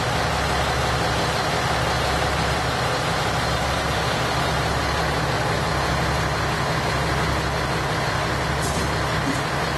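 Diesel engine of a standing KiHa 110 series railcar idling steadily.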